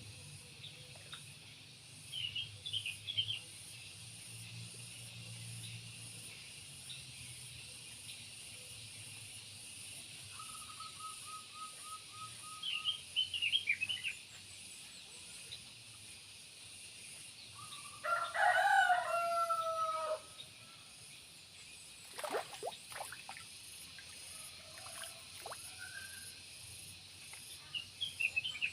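Rural outdoor ambience: small birds chirping in short bursts, and a rooster crowing once, about two seconds long, roughly eighteen seconds in, over a steady high hiss.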